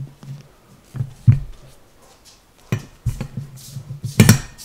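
Scattered knocks and clinks of valve parts being handled and set into a metal cylinder head by hand, five or so separate knocks with the loudest near the end.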